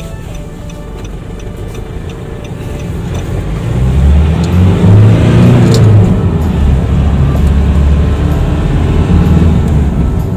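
Car driving, with engine and road noise heard from inside the cabin; the low rumble grows much louder about four seconds in as the car speeds up.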